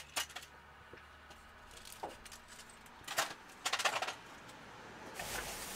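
Tools and loose items being gathered up and put away: scattered clinks and knocks, a quick cluster of them about three to four seconds in, then a short rustle near the end.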